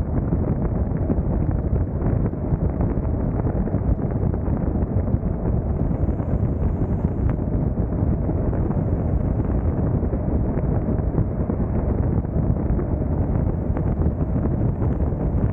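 Steady rush of wind across the microphone mixed with tyre and road rumble from a car cruising at freeway speed.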